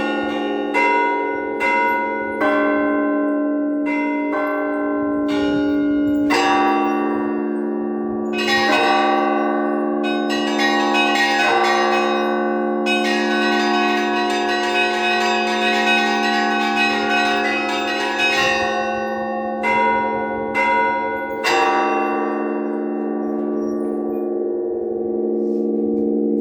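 Orthodox cathedral bells rung in an improvised peal: smaller bells struck one after another over the sustained hum of the larger bells. A fast run of small-bell strikes comes about halfway through, then a few last strikes, and the bells ring on and fade near the end.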